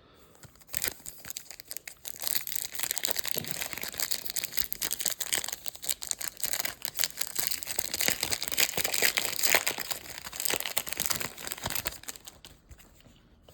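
Plastic wrapper of a trading-card pack being torn and crinkled: a dense run of sharp crackles that starts about a second in and fades near the end.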